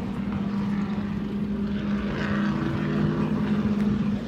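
A steady, low engine drone holding one pitch throughout.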